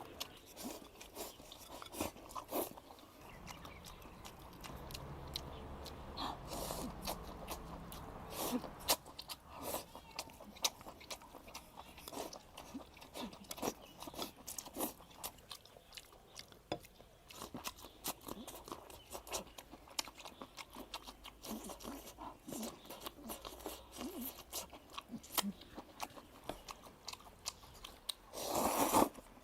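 A person eating close to the microphone, with irregular wet crunches and chewing sounds. A louder, longer noisy burst comes about a second before the end.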